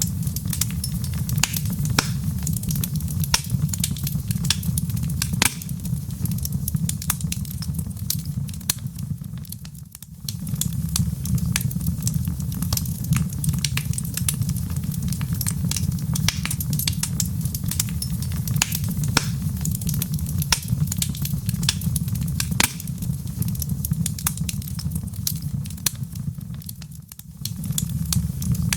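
Wood fire burning in a fireplace: frequent sharp crackles and pops over a steady low rumble of the flames, which dips briefly twice.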